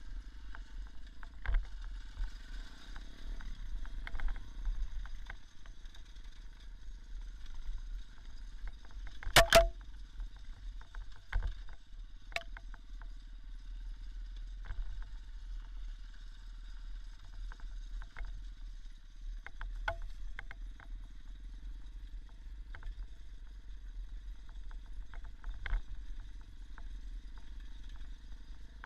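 Small Irbis motorcycle engine running on a rough forest trail, with a low rumble of wind on the microphone and frequent knocks and rattles from the bumps. One loud sharp knock comes about nine seconds in.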